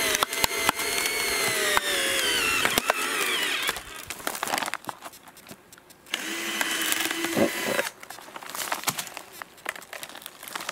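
An electric power tool cutting into a bamboo nest tube, its motor whine sliding up and down in pitch as it bites. It stops about four seconds in, runs again briefly around six seconds, then crackles and knocks follow as the tube is worked open.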